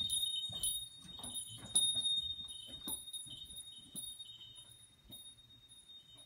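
Small high-pitched bell struck again and again at uneven intervals, the loudest about two seconds in, its ring carrying on between strikes and slowly fading, with soft knocks under some strikes.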